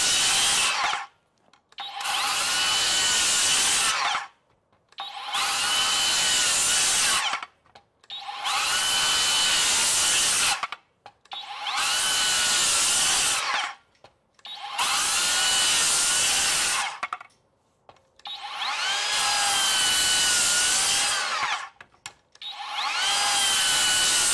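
SKILSAW 7-1/4-inch TRUEHVL cordless worm-drive circular saw making repeated cross cuts into pressure-treated 4x6 timber, about eight times. Each cut lasts two to three seconds: the saw spins up, holds a steady pitch through the wood and winds down, with a short pause before the next.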